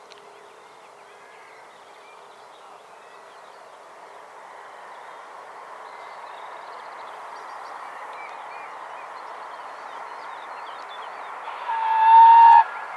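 Steam locomotive 60163 Tornado, a Peppercorn A1 Pacific, approaching at speed: a steady rush of train noise growing louder, then one steam whistle blast about a second long near the end. Birds chirp faintly.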